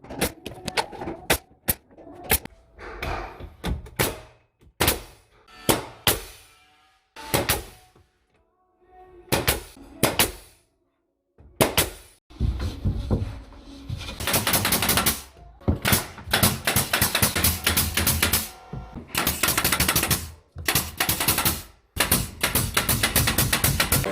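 Rapid runs of sharp clicks and knocks, scattered at first and then dense and nearly continuous in the second half, with music.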